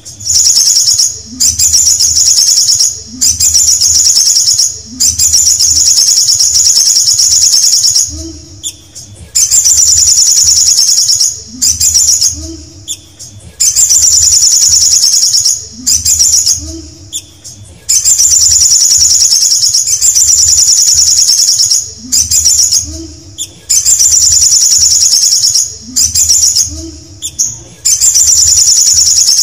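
Male olive-backed sunbird singing: a rapid, high trill given in repeated bouts of one to four seconds with short pauses between them, over and over.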